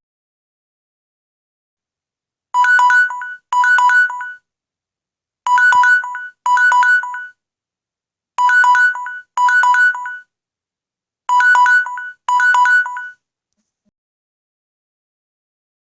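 Samsung Galaxy's older default timer alarm tone, 'Ticktac' (Android 4 and earlier), going off: quick runs of short, high electronic beeps in pairs, the pair repeated four times about every three seconds, meaning the countdown timer has run out.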